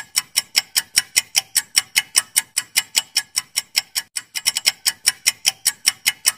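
Clock-ticking sound effect for a quiz countdown timer: sharp, even ticks about five a second, briefly doubling up a little after the four-second mark.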